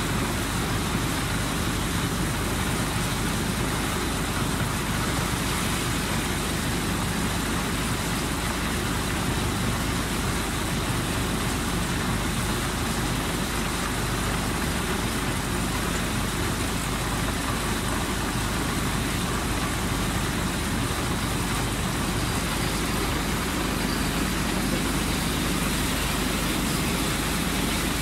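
Steady rushing background noise with a faint low hum beneath it, even and unchanging in level.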